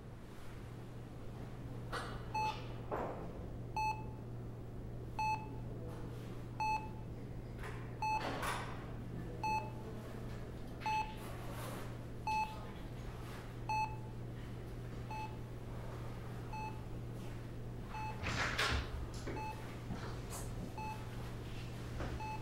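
Bedside patient monitor beeping steadily, one short beep about every second and a half, over a low steady hum; the beeps mark the patient's heartbeat. A couple of brief soft rustles.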